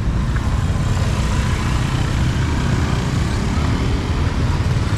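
Street ambience: a steady, loud low rumble with an even hiss over it, with no single distinct event standing out.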